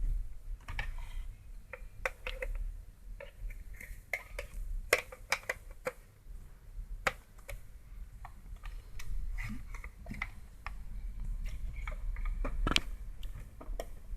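Irregular light clicks and taps of small parts and hand tools being handled while a radio is put back together, over a low steady hum.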